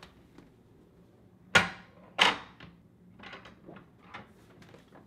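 Two sharp door bangs about half a second apart, then a few faint knocks and clicks.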